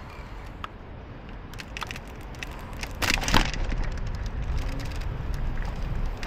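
City street traffic: a steady low rumble with scattered small clicks, and a sudden loud burst of noise about three seconds in.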